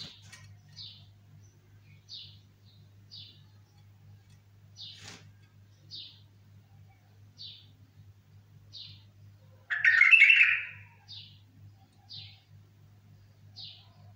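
Bulbul calling in an aviary: short high chirps repeated about once a second, with one loud, fuller song phrase about ten seconds in.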